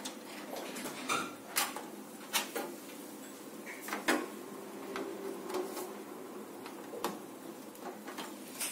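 Irregular plastic clicks and light knocks of front-panel USB and HD audio cable connectors being handled and pressed onto motherboard pin headers inside a PC case.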